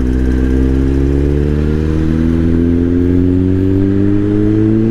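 Kawasaki Z-series inline-four motorcycle engine running under way, its pitch rising slowly and steadily as it gains speed.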